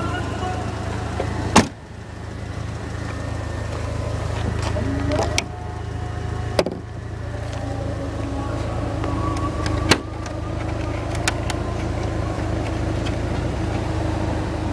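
A 1990 BMW 318i's four-cylinder engine idling with a steady low hum. Over it come several sharp clicks and knocks of hands handling the car, the loudest about one and a half seconds in and about ten seconds in.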